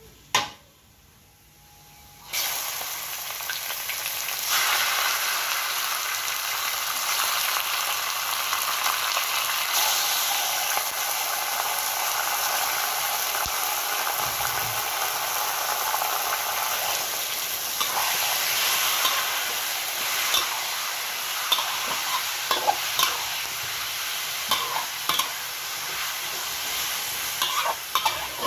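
Food frying in a hot pan, sizzling steadily, with a spatula stirring it. A single sharp knock comes just before the sizzle starts about two seconds in, and short scraping clicks of the spatula follow in the second half.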